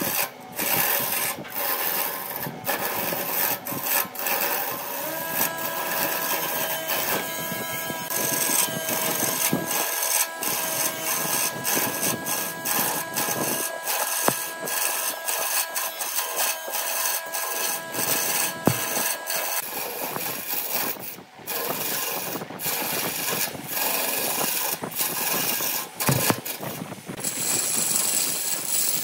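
Wood lathe spinning a wooden blank while a hand-held turning tool cuts it: a continuous scraping cut with many small ticks. A steady tone rides along under it from about five seconds in until about twenty.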